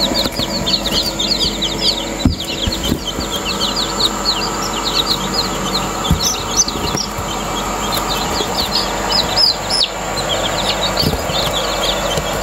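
A batch of newly hatched chicks peeping without pause: many high, short, falling cheeps overlapping. There are a few brief knocks, one about two seconds in and one near the middle.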